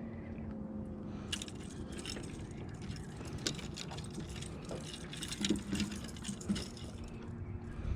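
Scattered sharp clicks and metallic rattles, thickest in the middle, over a steady low hum on a boat.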